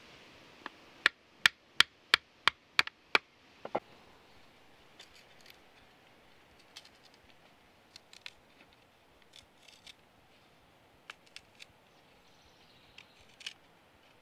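A thin knife blade being worked down a split in a narrow wooden strip, the wood cracking as it parts: a run of seven sharp cracks about three a second, a duller knock just after, then scattered faint ticks and crackles.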